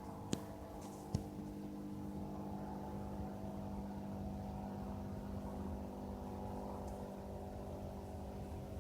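Light aircraft's propeller engine droning steadily overhead at low altitude, holding a constant pitch. Two faint clicks sound in the first second or so.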